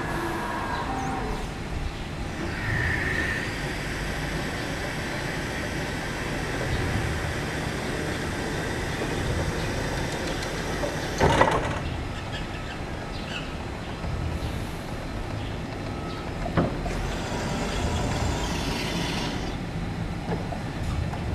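A BT electric reach truck's mast lowering its forks, with a steady low mechanical noise. A sharp metallic clank about halfway through is the loudest sound, and a lighter knock follows about five seconds later.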